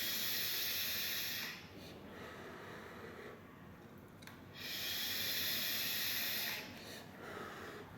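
Two long draws on a freshly built rebuildable tank atomizer (RTA): a steady hiss of air pulled through the airflow and over the firing coil. The first pull ends about a second and a half in, and the second runs about two seconds from a little past halfway.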